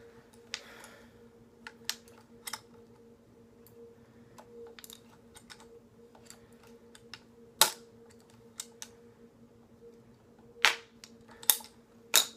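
Hand-held pipe cutter clicking irregularly as it is squeezed slowly through polyethylene (PE) tubing, with a few sharper snaps in the second half, over a steady low hum.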